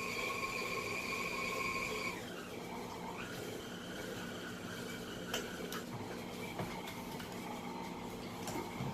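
Electric mixer motor whining steadily, mixing cake batter; about two seconds in its pitch falls as the speed is turned down, and it runs on more quietly. A few light clicks near the end.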